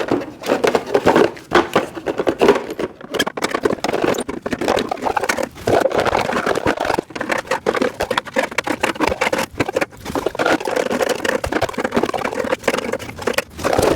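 Rapid, irregular clatter of knocks, clicks and scraping as storage-rack parts are handled and fitted into place.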